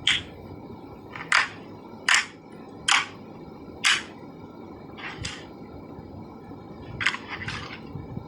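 Slime making short popping sounds, about seven in all, roughly one a second, the last two softer and closer together near the end.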